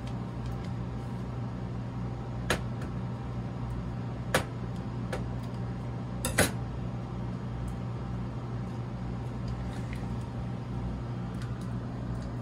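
A knife cutting a block of butter into cubes on a steel counter, the cubes going into a saucepan: a few sharp knocks and clicks about two seconds apart over a steady low hum.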